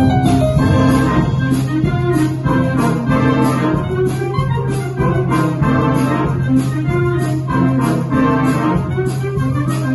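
Wind band playing live, clarinets and other winds together with a digital stage piano, over a low note held steady underneath.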